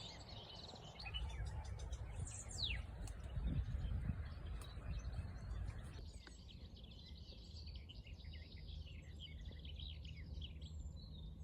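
Faint birdsong: small birds chirping and twittering, with one falling whistled note about two and a half seconds in. A low rumble runs under the first half.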